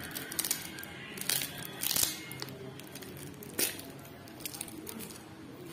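Plastic wrapping being torn open and crinkled by hand, with several short, sharp rips and rustles.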